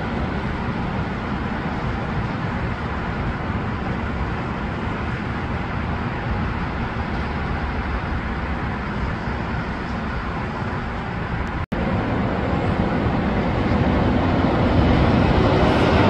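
Steady noise of road traffic and trains, heard from high above a busy railway and highway. It cuts out for an instant about two-thirds of the way through, then grows louder near the end as another train approaches.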